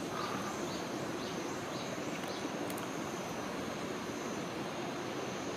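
Outdoor ambience: a steady background hiss with a faint, steady high-pitched drone, and a run of short, faint chirps about twice a second during the first two seconds or so.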